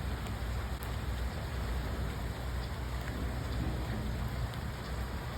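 Very light, fine rain falling as a steady soft hiss with a few faint drop ticks, over a low rumble.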